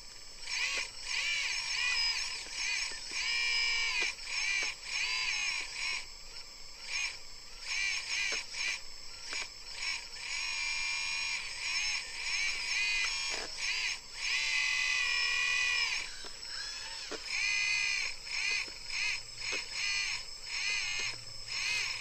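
Electric hydraulic pump of a 1/14-scale RC hydraulic excavator whining as the boom, stick and bucket are worked. The whine starts and stops every second or two, and its pitch wavers and dips as the load changes.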